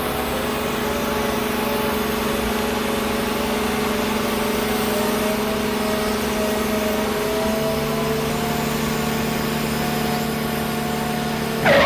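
An engine running steadily at a constant speed, its pitch shifting slightly about seven and a half seconds in.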